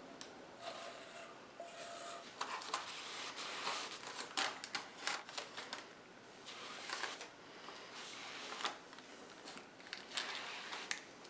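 Silicone spatula scraping cake batter out of a stainless steel mixing bowl, then spreading it in a parchment-lined metal baking pan: soft scrapes and rubs with scattered light taps, and a couple of brief squeaks in the first two seconds.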